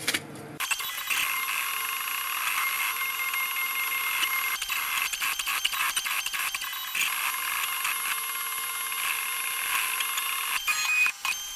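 3D printer converted to a pen plotter, its stepper motors whining in several steady high tones as the head draws PCB traces, the pitch shifting as the moves change and with many short ticks at changes of direction. It starts about half a second in.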